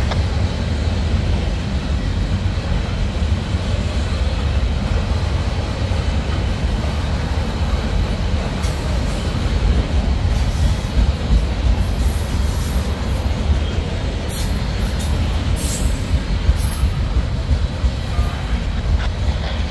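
Freight train rolling past with a steady low rumble of wheels on rail, and a few short high-pitched wheel noises in the second half.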